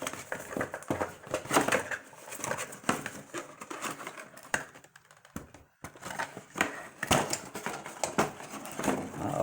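A webcam's retail box and packaging being handled and opened: irregular crinkling and rustling with sharp clicks and snaps, pausing briefly in the middle.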